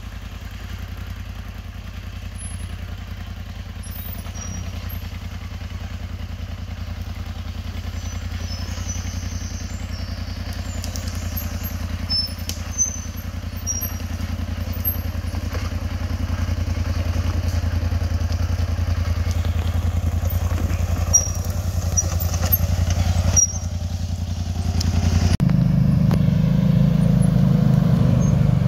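ATV engine running steadily as the quad climbs toward the camera, growing louder as it approaches. Near the end the sound cuts to another ATV engine, louder and deeper, working hard close by.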